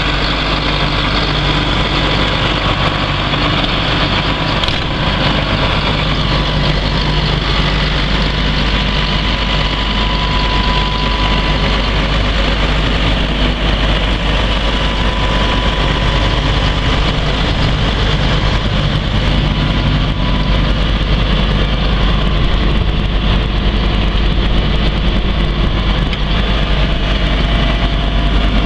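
Challenger MT645C tractor's diesel engine idling steadily.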